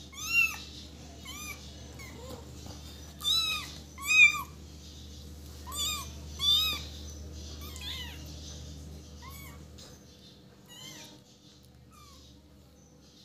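Kittens mewing: about a dozen short, high-pitched mews, each rising then falling, often in pairs, growing fainter over the last few seconds.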